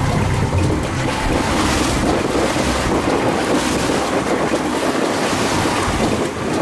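Wind buffeting the microphone aboard a sportfishing boat at sea, over the steady rush of the sea.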